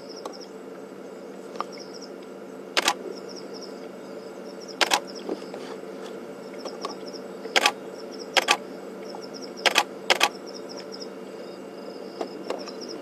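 A camera shutter clicking about six times at uneven intervals, the loudest sounds, over crickets chirping in short repeated trills and a steady low hum.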